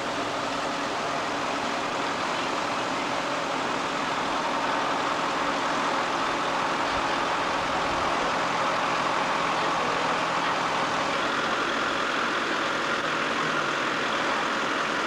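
Steady motor-vehicle engine and road noise, growing slightly louder over the first few seconds.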